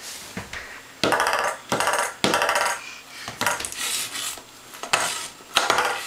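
A toy noise tube sounding in a string of short pitched bursts, about seven in a few seconds.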